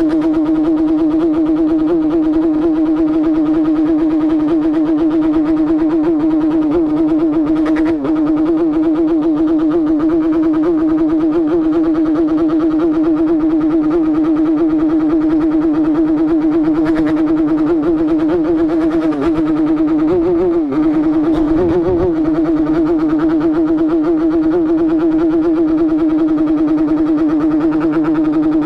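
Yamaha RX-King two-stroke single-cylinder engine and exhaust running at a steady high pitch, with a brief dip in pitch about twenty seconds in.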